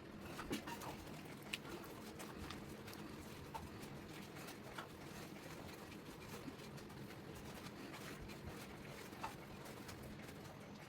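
Quiet kitchen preparation sounds: light, scattered taps and clicks, roughly one a second, over a low steady hum.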